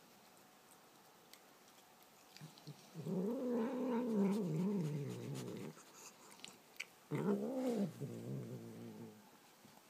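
Domestic cat giving a low, throaty growling murmur while eating meat from a hand, twice: a longer call about three seconds in whose pitch wavers up and down, then a shorter one about seven seconds in that rises and falls. The owner takes it for grumbling over food, not anger.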